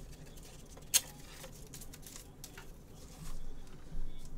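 Hard plastic card holder handled in gloved hands: one sharp click about a second in, then light plastic rubbing and tapping near the end.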